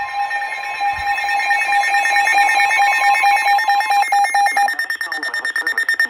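Several NOAA weather radios sounding their electronic alert tones together for a severe thunderstorm warning: overlapping rapid beeping and a steady high tone. The lower beeping stops about four and a half seconds in while the higher tone carries on.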